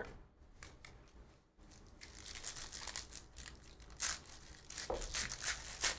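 Trading-card pack wrappers and cards being handled, crinkling and tearing in irregular crackly rustles. It is faint for the first couple of seconds, then busier, with sharper crackles in the last couple of seconds.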